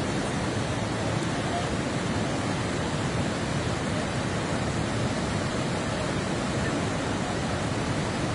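Swollen Coquihalla River in flood, its fast current rushing steadily.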